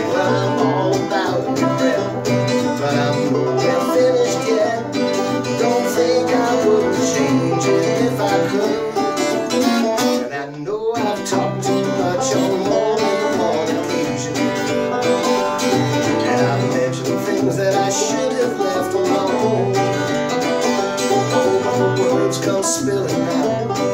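Acoustic guitar and banjo playing together between sung verses, with a short drop in the playing about ten and a half seconds in.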